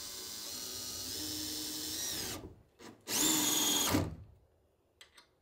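Cordless drill-driver driving a hinge screw into wood: one steady run of the motor whine, its pitch creeping up, stopping about two and a half seconds in, then a shorter, louder burst. During this screwing the driver bit breaks off in the screw head.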